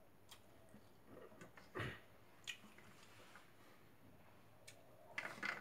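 Faint eating sounds: fingers working rice on a steel plate, with scattered small clicks and taps, one louder dull knock about two seconds in, and a short crackly cluster of chewing near the end.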